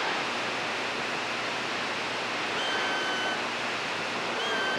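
CB radio receiver static: a steady hiss on the open channel between transmissions, with a faint whistling tone coming in about two and a half seconds in and again near the end.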